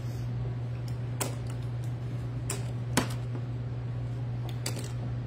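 A handful of short, sharp clicks and taps, four or five spread across a few seconds, as mesh petals are handled and pressed into a plastic flower-form board, over a steady low hum.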